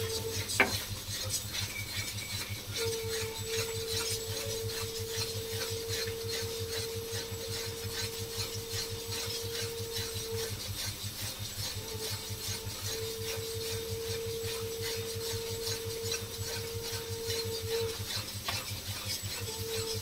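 Long metal spatula scraping and stirring thick spice paste around a metal kadai in quick, regular strokes, several a second, as the masala is fried down (kosha) until the oil separates.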